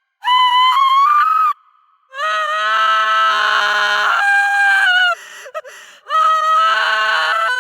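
A woman's high-pitched screams of fear, three of them: a short one, a long one of about three seconds, and a third starting near the end, with short silences between.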